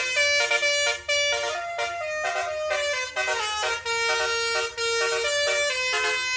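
Telolet horn, a multi-tone air horn of the kind fitted to Indonesian buses, playing a melody of held notes that step up and down with short breaks between them.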